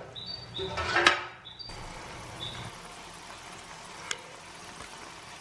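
Sliced bell peppers frying in plenty of oil in a pan: a steady sizzle, with a knock about a second in.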